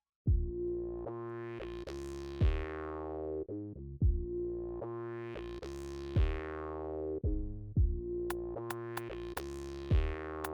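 Electronic background music starts after a brief silence. It has sustained synth chords, a deep kick drum and sweeps that swell and fade every few seconds, and hi-hat ticks come in near the end.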